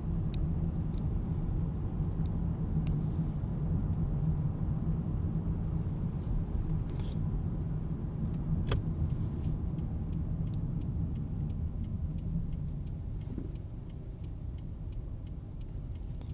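Car driving, heard from inside: a steady low rumble of engine and tyres on the road, with scattered faint clicks and ticks.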